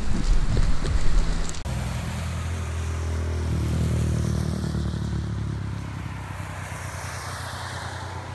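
Motor vehicle traffic on a wet road: an engine hum that swells to its loudest about four seconds in and then fades, with tyre hiss off the wet asphalt. For the first second and a half, before that, rough buffeting of wind and handling on the microphone.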